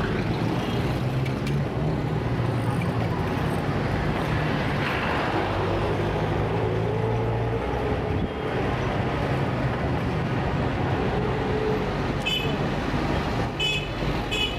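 Heavy city traffic at a standstill or crawl: engines running steadily with a low hum, and a few short horn toots near the end.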